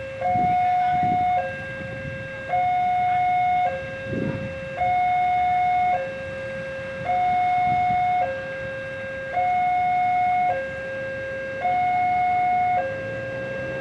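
Railway level-crossing warning alarm sounding a repeating two-tone high-low signal, each tone held for about a second. The alarm signals that the crossing is closed for an approaching train. Low traffic rumble sits beneath it.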